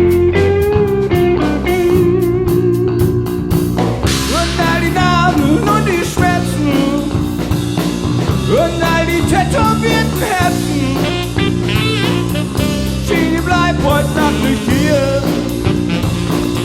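Background rock music with guitar, bass and drums.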